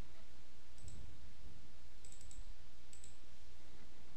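Computer mouse clicking several times, faint and short, some clicks in quick pairs like double-clicks, over a steady low hum.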